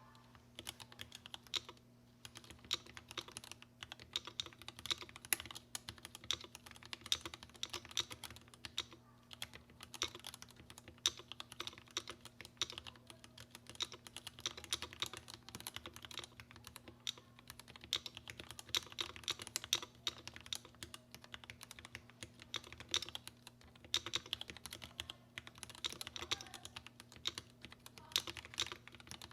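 Typing on a Tokyo60 mechanical keyboard with Gateron Black Ink v2 linear switches lubed with Krytox 205g0: a fast, continuous run of keystrokes with a few brief lulls.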